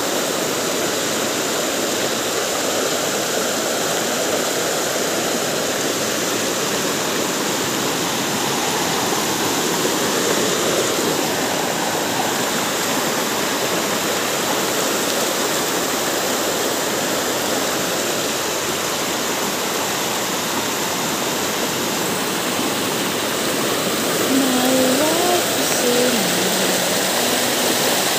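Muddy floodwater rushing fast over a road and its rocks and debris: a steady, loud rush of water. A brief wavering pitched sound comes through near the end.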